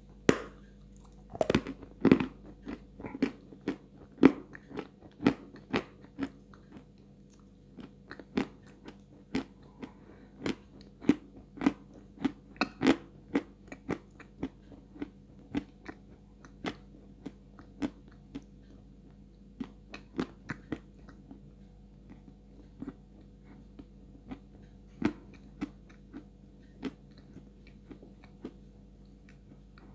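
A close-miked bite into a block of white Astana 2 edible clay, with a sharp crack at the start. This is followed by crunchy chewing, fast and loud at first, then sparser and softer towards the end.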